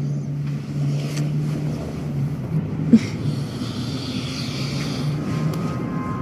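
A steady low drone of held tones, with a short sharp sound about three seconds in and a soft hiss that rises over it for a couple of seconds.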